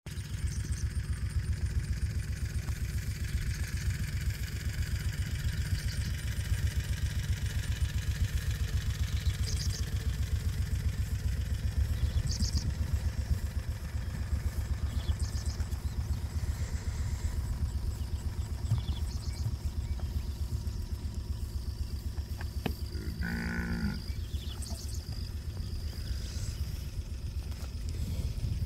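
Wind buffeting the microphone in a steady, fluttering low rumble. About 23 seconds in, one of the Brahman cattle moos once for about a second. A few faint, short high chirps come and go.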